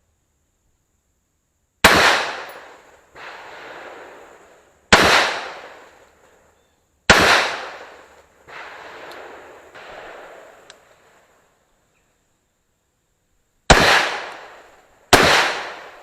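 Five single shots from a Bushmaster QRC AR-15 rifle in .223/5.56, fired one at a time at an uneven pace: three in the first half, then two more close together near the end. Each crack dies away over about a second, and after two of the shots a softer, longer swell of sound follows about a second later.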